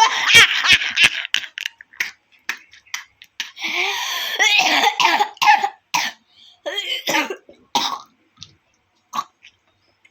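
A person laughing hard and breaking into coughing fits. The bursts come in clusters with short gaps, with a few brief coughs near the end.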